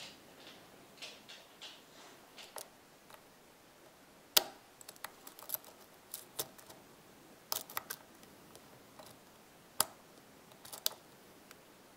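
Single-pin picking of an MU pin-tumbler cylinder with serrated driver pins: a hook pick and tension wrench in the tight keyway make irregular small metallic clicks and ticks, the sharpest about four seconds in and again near ten seconds.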